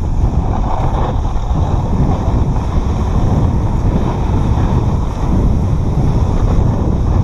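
Wind buffeting the microphone of a camera on a moving dog sled: a loud, steady low rumble.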